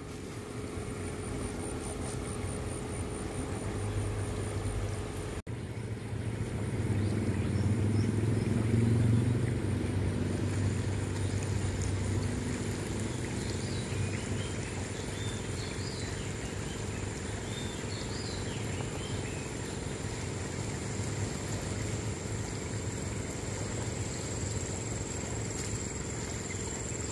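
A steady low engine hum that swells for a few seconds and eases off again, as of a motor vehicle passing, with a thin steady high whine and a few faint chirps over it.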